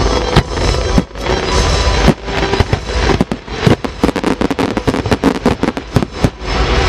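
Fireworks display: aerial shells bursting in rapid volleys, many sharp bangs and crackles in quick succession, with music playing underneath.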